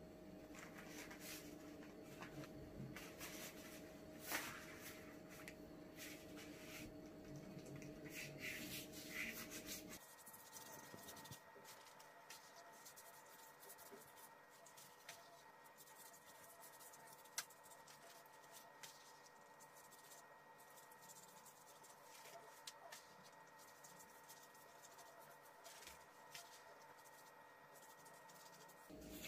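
Faint rubbing and scratching of a pastry brush dabbing melted butter onto thin yufka (phyllo) sheets in a tart pan, with soft crinkles as the sheets are handled.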